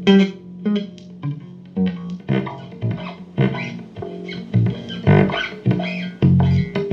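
Guitar being played: a run of separate plucked notes over strong, ringing low bass notes.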